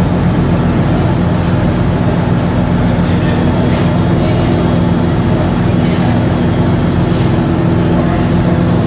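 GVB passenger ferry's engine running steadily under way, an even low drone with a steady hum, heard from inside the passenger cabin.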